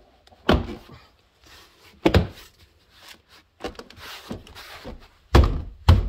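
Plastic interior door trim panel being pressed and tapped by hand onto the door: four dull thumps, the last two close together near the end, with a soft rubbing rustle between them as the panel is seated.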